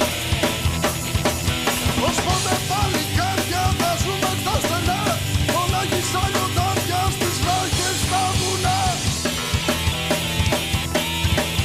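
Rock music with a driving drum kit beat and a heavy, distorted band sound; a bending lead melody line runs through the middle.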